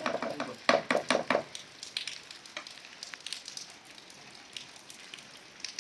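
Food frying in a pan, sizzling with scattered crackles. In the first second and a half there are several louder sharp knocks and scrapes, like a utensil stirring against the pan.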